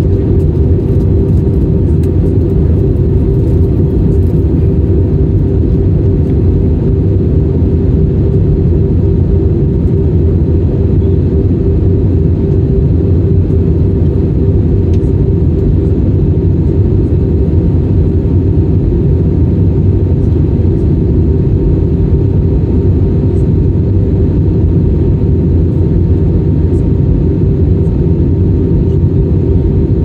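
Steady, loud cabin drone of a jet airliner descending: engine and airflow noise heard inside the cabin, deep and even, with a steady hum running through it.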